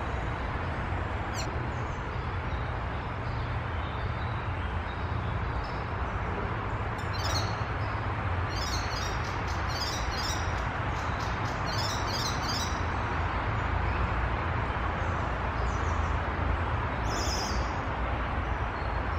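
Icterine warbler singing: runs of quick, high repeated notes from about seven to thirteen seconds in, and a couple of short high calls near the end, over a steady background rush.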